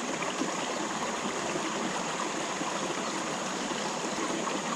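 Creek water running, a steady, even rushing with no breaks.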